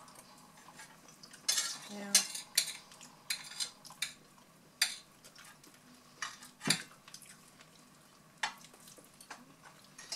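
Forks and a knife scraping and clicking on ceramic dinner plates: a string of short scrapes and taps, the sharpest a click about two-thirds of the way through.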